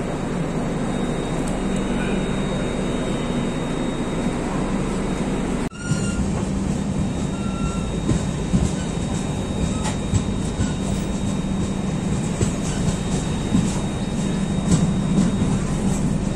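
Indian Railways express train running on the track: a steady rumble with irregular clicks and rattles, the clicks coming more often in the second half, broken by a brief dropout about six seconds in.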